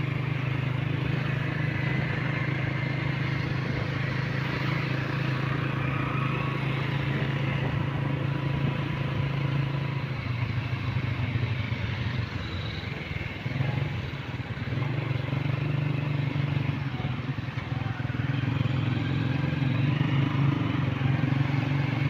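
Motorcycle engine running steadily while riding along a road, with road and wind noise. The engine note fades for a few seconds about halfway through, then comes back.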